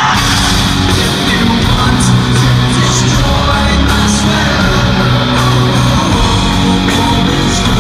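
Loud rock music with electric guitar and singing, kicking in fuller and louder all at once.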